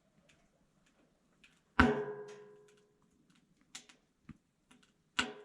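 A sharp knock that rings briefly. It is followed by a few faint clicks and a second, shorter knock near the end.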